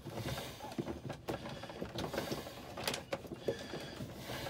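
Sheathed electrical cable being pushed and pulled through a plastic strain relief into a breaker panel: irregular scraping and rustling with small clicks and knocks.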